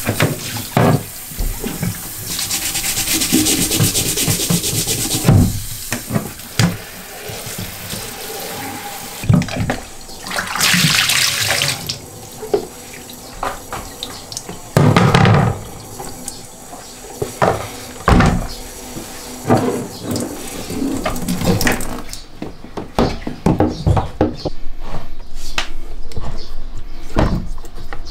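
Water from a handheld shower head spraying and splashing in stretches, with scattered knocks and bumps as a wet leather boot is handled.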